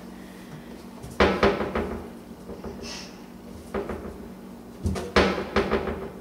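A kitchen base cabinet door knocking and clattering in three clusters of sharp knocks, about a second in, near four seconds and around five seconds, as a toddler shut inside the cabinet pulls at the door and bumps it. A faint steady hum runs underneath.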